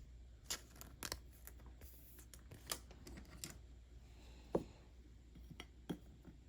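Faint handling of paper trading cards: a scatter of short, sharp ticks and light slides as cards are flicked and shifted in the hand.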